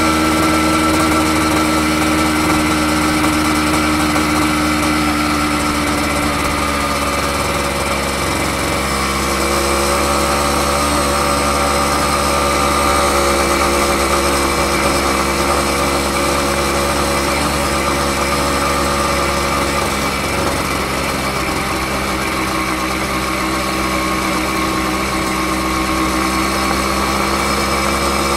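Honda MB50's 49 cc single-cylinder two-stroke engine and exhaust running steadily under way, its pitch shifting a little about seven to nine seconds in and then holding even.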